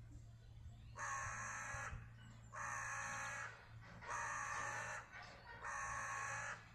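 Male crow cawing four times, each caw about a second long with a short pause between.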